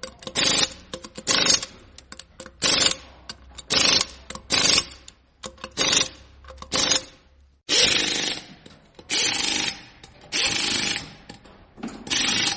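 A power tool working in short repeated bursts, roughly one a second, each a harsh grinding noise over a steady motor tone. After a brief break about two-thirds of the way in, the bursts come back longer, about a second each.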